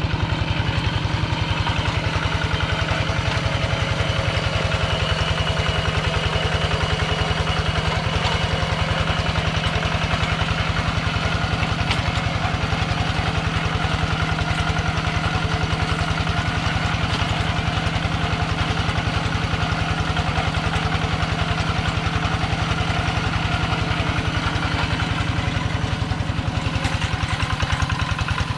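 Kubota two-wheel hand tractor's single-cylinder diesel engine running steadily under load as it plows through a flooded rice paddy.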